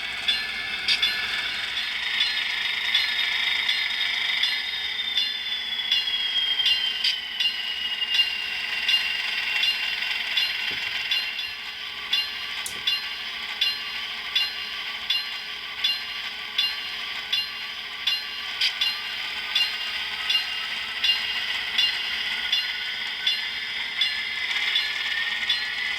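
HO scale model train's small electric motor and gears whining as it runs slowly, the pitch dropping a few seconds in and rising again near the end, with a light click about once a second.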